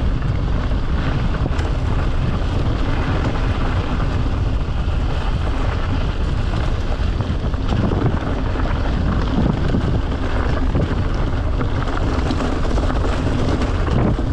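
Mountain bike riding a trail: a steady rush of wind on the camera's microphone over rolling tyre noise, with scattered small ticks and rattles.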